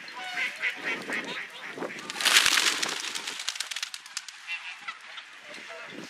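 Geese honking in short calls, with a loud rush of noise about two seconds in.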